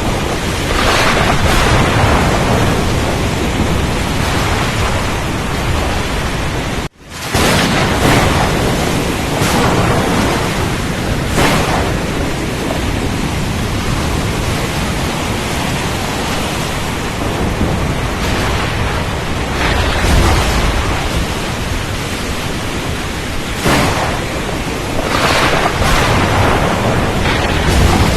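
Storm at sea: a dense, steady rush of rain and wind, with louder swells and rumbles of thunder coming every few seconds. The sound cuts out for an instant about seven seconds in.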